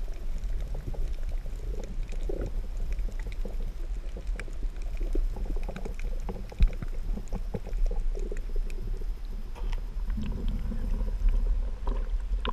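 Underwater sound picked up by an action camera in its waterproof housing: a steady, muffled low rumble with scattered small clicks and crackles, and one sharper knock about six and a half seconds in.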